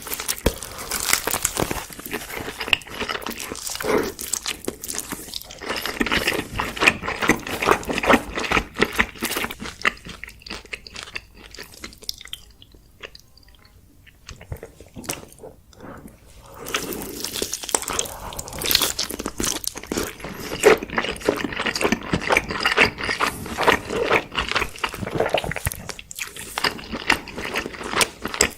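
Close-miked eating of crisp food: repeated crunchy bites and chewing, with a quieter lull of several seconds in the middle.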